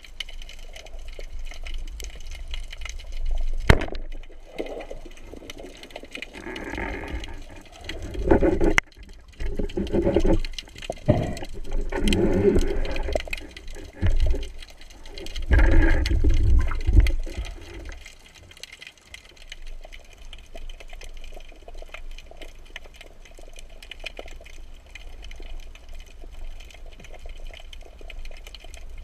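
Water sloshing and bubbling around a camera in the sea, in several louder bursts between about six and eighteen seconds in, over a steady low water noise with scattered clicks.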